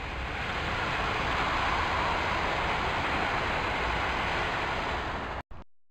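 A train passing at speed: a steady roar of wheels on rail that builds over the first two seconds, then cuts off abruptly about five seconds in.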